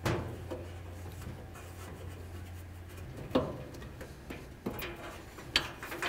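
Hands rubbing and working a Maytag dryer's drive belt off its spring-loaded idler pulley inside the cabinet, with a few sharp knocks of metal parts.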